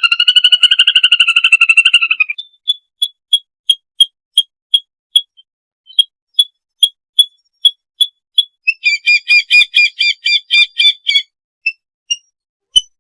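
Lesser whistling ducks giving their flock-gathering whistles. A fast chattering run of whistled notes opens, then short single whistles follow at about three a second, and a second fast, chattering run comes about nine seconds in. A few lone notes close.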